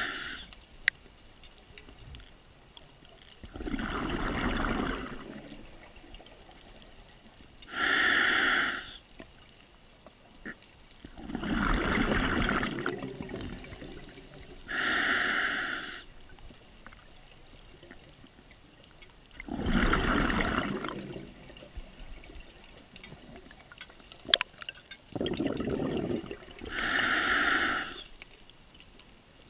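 Scuba diver breathing through a regulator underwater: a short hiss of air on each inhale, then a longer burble of exhaled bubbles, four slow breaths in turn.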